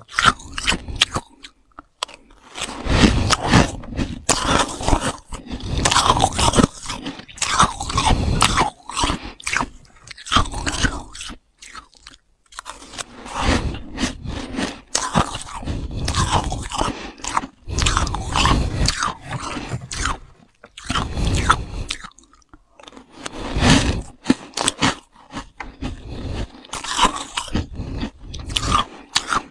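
Freezer frost being crunched and chewed close to the microphone, in runs of crisp crunching a few seconds long broken by short pauses.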